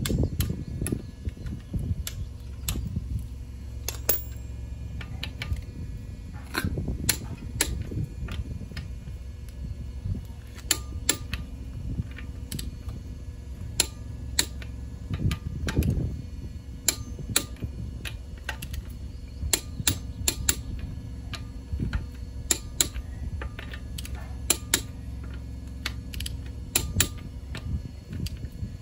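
Hand socket ratchet clicking as wheel bolts are run in on a car's front wheel: irregular runs of sharp clicks as the handle swings back and forth, over a low rumble.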